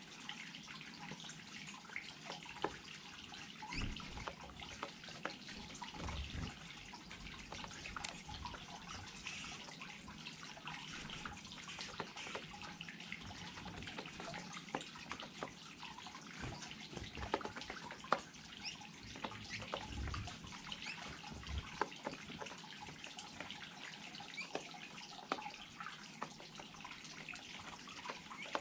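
Small garden cascade running, water splashing and trickling steadily with many irregular drips and splashes.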